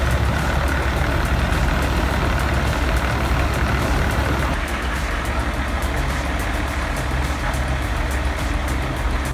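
Heavy diesel-powered machinery running steadily: a deep engine rumble under a continuous noisy rattle, easing off slightly about halfway through.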